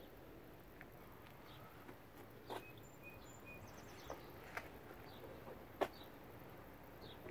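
Faint outdoor ambience with scattered short, high bird chirps and a few sharp clicks, the loudest about six seconds in.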